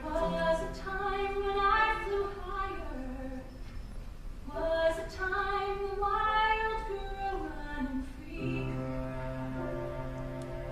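A woman singing a slow musical-theatre ballad live on stage over a soft band accompaniment: two sung phrases, then from about eight seconds the accompaniment holds a chord with a low sustained note while the voice rests.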